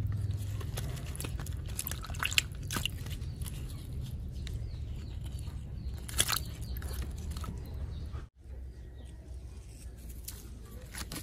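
Scattered small crunches and clicks from plastic toy vehicles being moved about, over a low steady hum. The sound drops out for an instant about eight seconds in.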